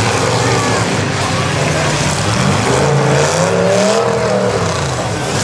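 Demolition-derby pickup trucks' engines running and revving loudly, several at once, over a dense noisy din; one engine's pitch climbs and falls back about three to four seconds in.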